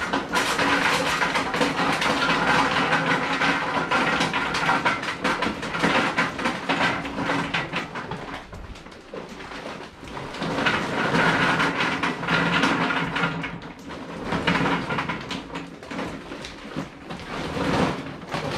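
Charcoal briquettes poured from the bag into a gravity-fed smoker's metal charcoal hopper, clattering and rattling as they tumble in. The pour eases off about nine seconds in and picks up again a second or so later.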